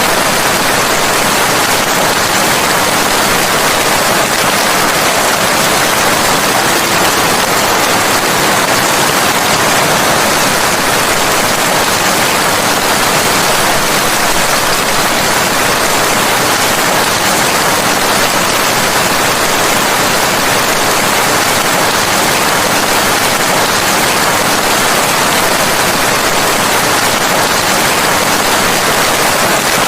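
Steady rain, heard as an even, unbroken hiss.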